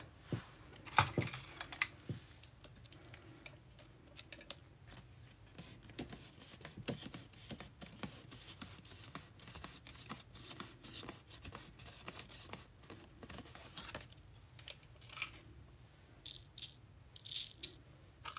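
Quiet handling of paper craft pieces and a clear plastic box of glitter: scattered light clicks, taps and rustles, with a brief louder rustle about a second in and a busier patch of clicks near the end.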